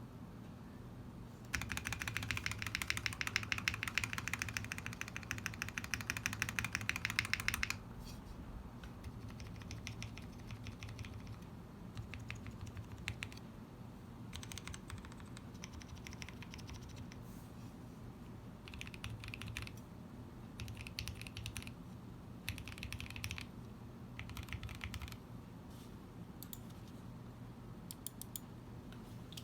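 Typing on a mechanical keyboard with an aluminium Tada68 case and lubed milky Gateron switches. A fast, dense run of keystrokes lasts about six seconds and is the loudest part. Quieter, scattered short bursts of typing with pauses between them follow.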